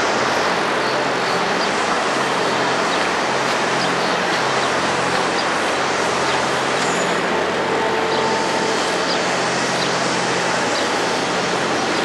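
Steady outdoor traffic noise with a low, even engine hum underneath.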